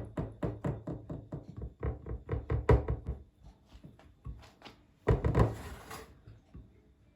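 Quick repeated knocks, about five a second, of crumbs being pressed and tapped down into a baking tray to form a biscuit base. They thin out to lighter taps, then a louder, rougher scraping sound lasts about a second near the end.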